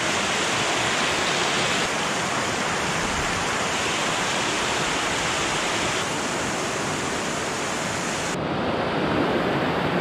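Forest waterfall: a steady rush of water falling over rock. The highest part of the hiss cuts away abruptly near the end, leaving a duller rush.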